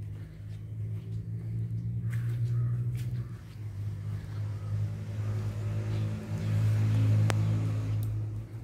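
A low, steady engine hum that grows louder about two seconds in and again near the end, with a single sharp click about seven seconds in.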